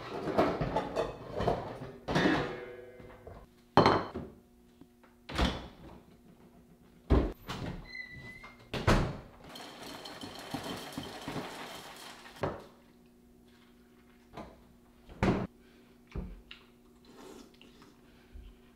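A run of separate knocks and thuds, with a few seconds of rushing noise about nine seconds in, over a steady low hum.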